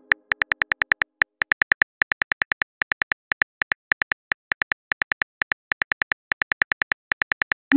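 Phone keyboard typing sound effect: rapid, evenly paced key clicks, about six a second, with a few short pauses. A rising swoosh of a message being sent comes right at the end.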